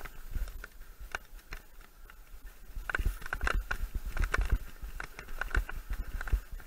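Mountain bike rattling and clicking over a rough dirt singletrack, with a low rumble of tyres on the trail. The knocks are sparse at first and come thick and fast from about three seconds in.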